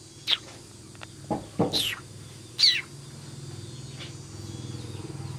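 Small birds chirping: three quick, high, falling chirps within the first three seconds, over a low steady hum that swells slightly after about three seconds.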